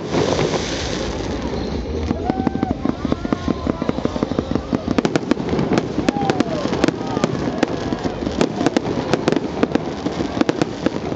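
Fireworks display: a dense, rapid crackle of many small pops and bangs over a steady rumble, growing busier about four seconds in.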